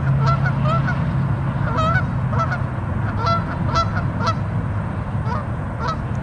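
A flock of geese honking at a pond, many short calls overlapping one another, over a steady low background rumble.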